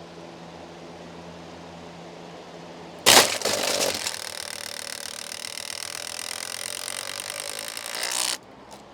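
Box fan running with a steady hum, then about three seconds in its spinning blades strike two bamboo sticks in a loud, rapid clatter that lasts about five seconds and cuts off suddenly; the fan does not break.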